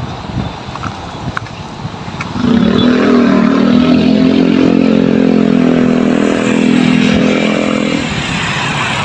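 A motor vehicle passing on the road: its engine drone comes in suddenly about two seconds in, holds steady and loud, then fades near the end.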